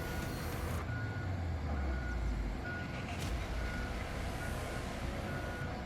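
Heavy machine's reversing alarm beeping about once a second over the low, steady running of a diesel engine.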